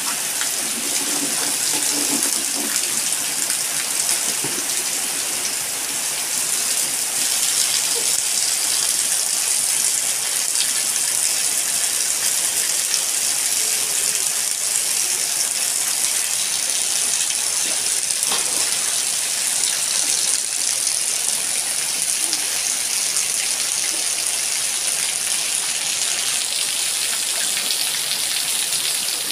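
Heavy rain falling steadily on a wet concrete yard, with a stream of water gushing down from a roof spout and splashing onto the ground.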